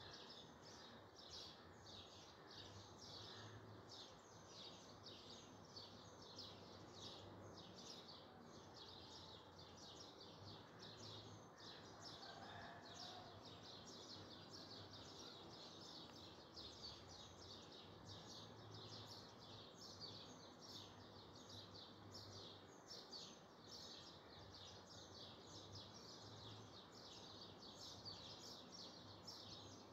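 Near silence with faint background chirping, repeated steadily a few times a second, over a low hum.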